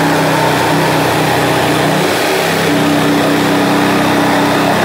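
Corded electric jigsaw cutting through a pine board wall, running steadily under load, with its motor pitch shifting a little about two seconds in. It is cutting out the opening for an electrical box and is just breaking through.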